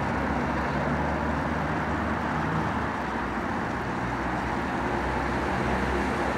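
Steady low rumbling background noise, with no distinct ticks standing out.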